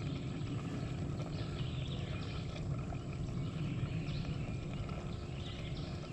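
Steady outdoor background noise, a low rumble with no distinct event.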